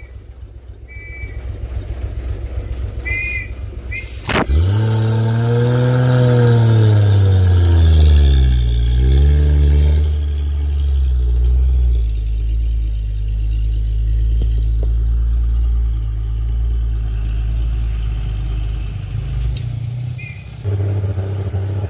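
Heavy loaded cargo truck's diesel engine running low, then revving hard about four seconds in as the truck pulls away up a steep climb after stalling there and being chocked with stones; its pitch rises and falls over the next few seconds, then settles into a steady labouring drone. A short sharp sound comes just before it pulls away.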